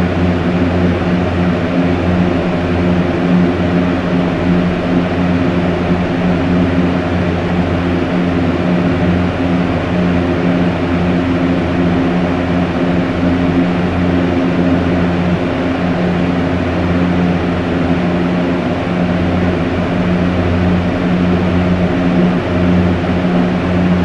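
Electric fan running steadily at a strong setting: an even whir of moving air over a low, steady motor hum.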